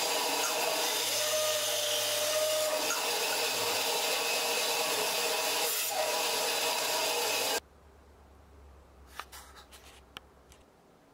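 Bandsaw running and cutting through a mahogany block, a steady loud saw noise that cuts off abruptly about two-thirds of the way in. A few faint clicks and handling knocks follow.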